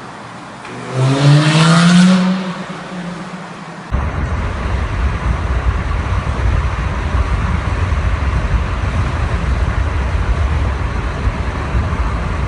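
Lamborghini Gallardo Spyder's V10 engine revving once, loud, its pitch rising for about a second before it dies away. About four seconds in, the sound switches abruptly to a steady low rumble.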